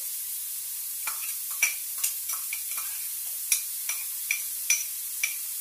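Chopped onion sizzling in hot olive oil in a pot on the stove, with a spoon clinking sharply about a dozen times as the onion is scraped in and stirred.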